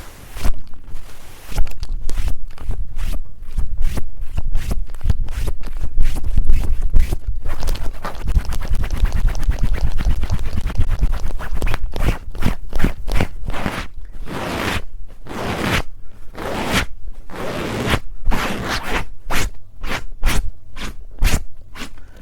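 Fast, hard scratching and rubbing right on a TASCAM recorder's microphones, in quick repeated strokes over a heavy handling rumble.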